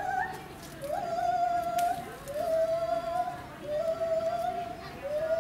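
A voice giving a series of long, clear hooting notes, each sliding up quickly and then held level for about a second, repeating roughly every second and a half.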